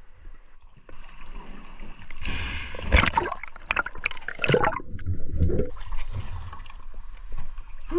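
Sea water splashing, gurgling and streaming off a diver as he climbs out of the sea up a boat's boarding ladder, with a few sharp knocks partway through.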